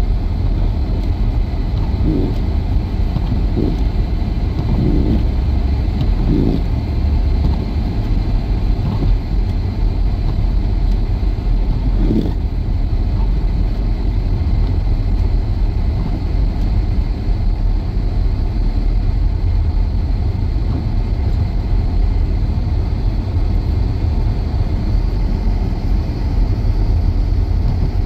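Car cabin noise while driving on a snow-covered road: a steady low rumble of engine and tyres, with a few faint brief knocks in the first few seconds.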